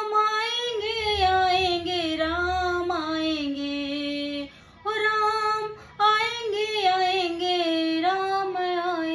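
Woman singing a Hindi Ram bhajan into a microphone in long, drawn-out notes with slight wavering pitch, the phrases broken by short breaths about halfway through.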